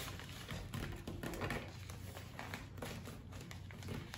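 Paper being folded and creased by hand on a tabletop: soft, scattered rustles with a few light taps as fingers press the folds down.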